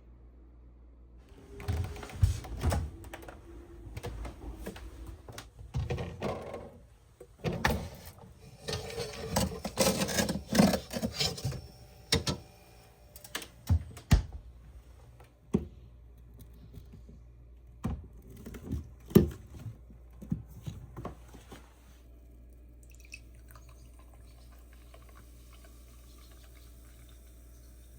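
Irregular knocks, clicks and rustling of things being handled, dying away about three quarters of the way through and leaving a faint steady hum.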